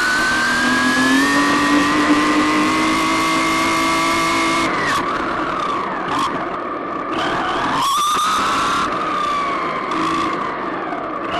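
RC car's motor whining as it accelerates, the pitch rising for about four seconds before dropping off when the throttle is let go, then climbing and falling again near the end, with a rushing noise from the tyres on tarmac.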